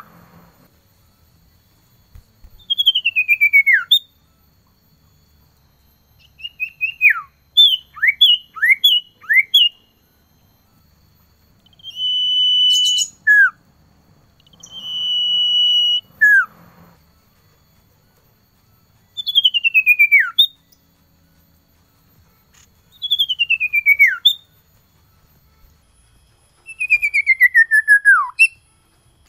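Male common iora singing: a series of drawn-out whistles sliding down in pitch, a quick run of short down-slurred notes about seven seconds in, and a long steady whistle around twelve seconds in, with pauses between phrases. It is the male's song calling a female, used as a lure to get captive ioras singing.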